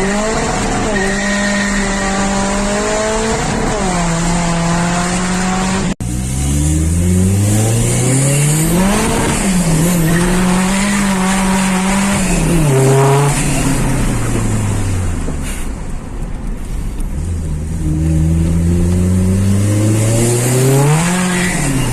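Fiat Punto 1.3 Multijet four-cylinder turbodiesel revved up repeatedly and held at the rev limiter for a few seconds each time before dropping back. The pitch climbs, sits level, then falls. The sound breaks off for an instant about six seconds in.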